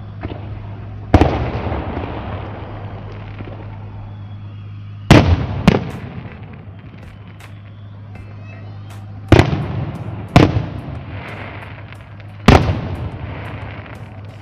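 Aerial fireworks shells bursting: six sharp bangs at uneven gaps of half a second to four seconds, each trailing off in an echoing rumble, with light crackling in between.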